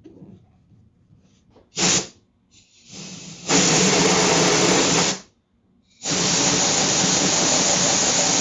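Pressurised spray hissing in one short burst, then two long, steady bursts of about two and three seconds.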